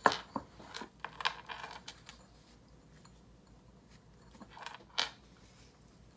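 Porcelain teacup set down on its saucer with a sharp clink, followed by scattered small clicks and rustles of flower stems being handled, and another sharp click about five seconds in.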